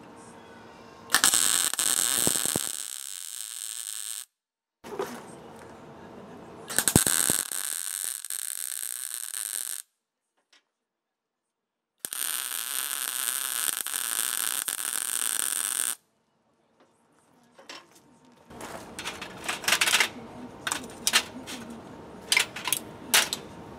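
MIG welder arc crackling and hissing in three bursts of about three to four seconds each as welds are laid on a steel bracket. Near the end, a quick series of sharp metal clinks and taps as tools and the welded part are handled.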